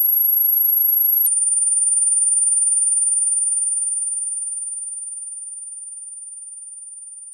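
A steady, very high-pitched pure electronic tone. About a second in it steps down to a slightly lower pitch, then slowly fades away.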